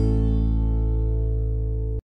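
Background music: a held guitar chord left ringing and slowly fading, cut off suddenly at the end.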